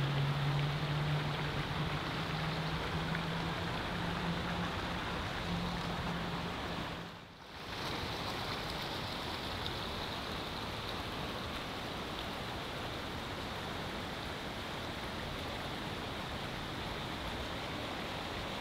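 Steady rush of running water from a garden stream or waterfall. A low steady hum underlies it for the first seven seconds and fades out. The sound dips briefly about seven seconds in, then the water carries on unchanged.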